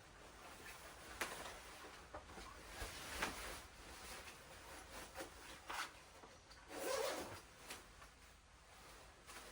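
Rustling and handling noises: a run of short scrapes and clicks, with a longer rasp about seven seconds in.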